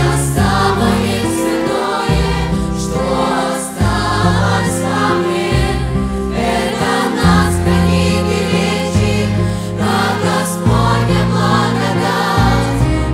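Children's choir singing with a symphony orchestra: violins, cellos and double basses hold long chords under the voices, the harmony shifting every second or so.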